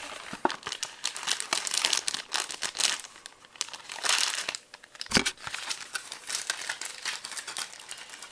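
Packaging crinkling and rustling as it is handled by hand to get cigars out, with one dull knock about five seconds in.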